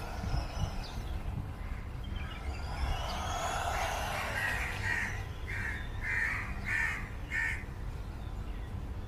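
A crow cawing about seven times in quick succession in the middle of the stretch. Before it, a small electric motor whines up and down, over a steady low wind rumble on the microphone.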